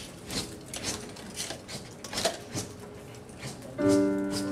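A run of short, crisp taps about twice a second, then a sustained keyboard chord comes in near the end and holds.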